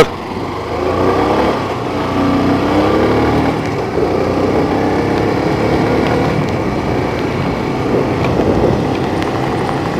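A motor vehicle's engine running just after being started, its pitch rising and falling as it revs.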